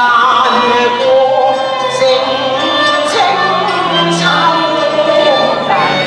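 Cantonese opera song (yuequ) sung at a microphone, accompanied by a live traditional Chinese instrumental ensemble, the voice holding and bending long sung notes.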